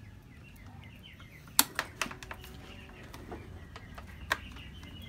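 A few sharp clicks from handling the motorcycle's parts and switches, the loudest about one and a half seconds in, over a faint low hum, with birds chirping faintly in the background.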